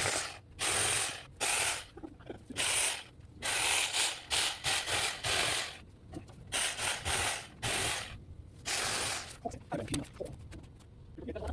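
Porter-Cable reciprocating saw cutting tree branches in about ten short bursts of half a second to a second each, stopping and starting between them. Only a few small clicks near the end.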